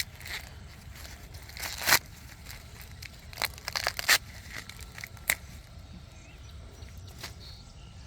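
Sweet corn plants being handled in harvest: dry leaves and husks rustling and tearing in irregular short bursts, the loudest about two and four seconds in.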